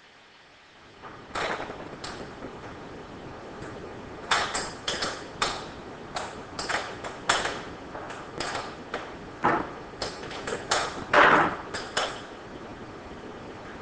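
Sharp metallic clicks and clinks of a 13 mm spanner on the front wheel axle nut of an A-bike folding bicycle as the nut is worked loose, irregular at one or two a second, with the loudest clack a little after eleven seconds in.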